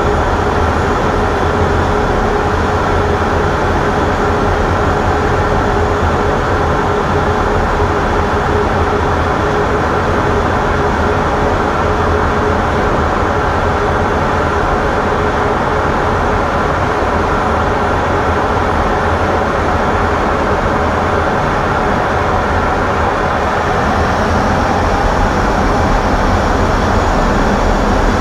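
Steady cockpit noise of a Boeing F/A-18E/F Super Hornet in flight: loud, even jet engine and airflow noise with several steady hums and whines running through it.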